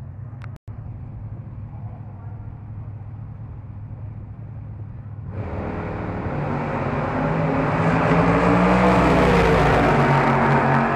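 Low engine rumble, then about halfway through a drag race car's engine at full throttle comes in suddenly and grows louder as the car runs down the strip, loudest near the end.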